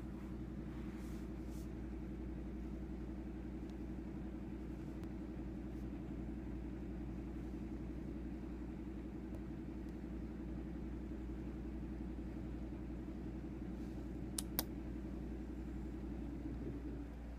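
House cat purring steadily, close to the microphone, a fast even rumble. Two short clicks about fourteen seconds in.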